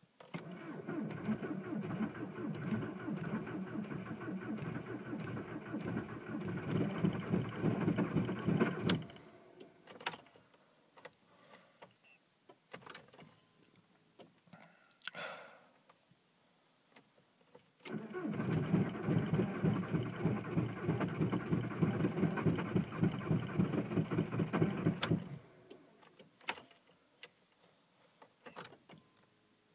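Starter cranking the 1.9-litre PD turbodiesel of a 2004 Volkswagen Jetta TDI in deep cold, about −27 °C, in two attempts. It cranks for about nine seconds, stops for a pause broken by a few faint clicks, then cranks again for about seven seconds. The engine does not catch: a hard cold start.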